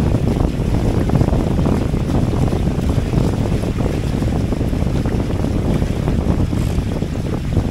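Steady wind noise on the microphone over water rushing along the hulls of a Hobie Cat 18 catamaran under sail.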